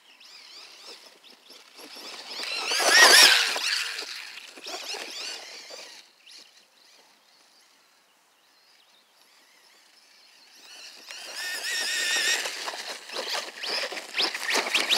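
Electric RC dune buggy's brushless 3900 KV motor and drivetrain whining as it is driven through snow, the pitch rising and falling with the throttle. It is loudest about three seconds in, fades almost away in the middle, then comes back louder toward the end.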